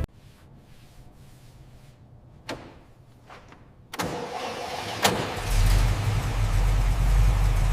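1959 Cadillac DeVille's V8 engine being started: a few faint clicks, then about four seconds in the engine fires and, after a sharp click, settles into a steady low idle.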